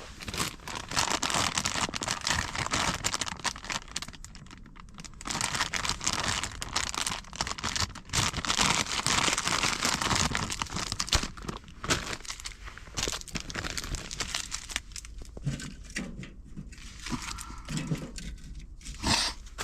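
Crinkly material being rustled and handled close by, in stretches of a few seconds with short pauses.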